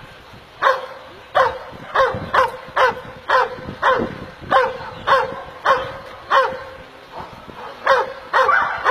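Pit bull barking repeatedly, about two sharp barks a second, with a short lull around seven seconds in.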